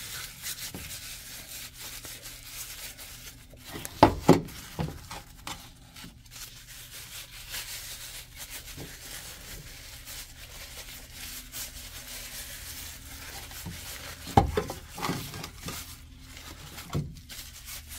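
Disposable plastic gloves crinkling and rubbing as hands massage seasoning into raw pork tenderloins, with a pair of sharp knocks about four seconds in and another about fourteen seconds in.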